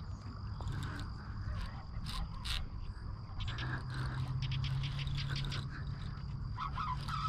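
Handling noise while a hooked redfish is fought from a kayak: scattered sharp clicks and knocks of rod, reel and hull, over a steady high drone of marsh insects and a low hum.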